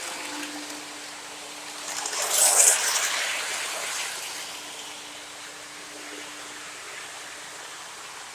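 O gauge model train running on its track: a steady rushing rolling noise with a faint motor hum, and a louder hiss that swells about two seconds in and fades.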